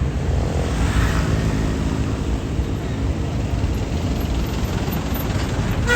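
A large tour bus's engine running with a steady low rumble, amid street noise.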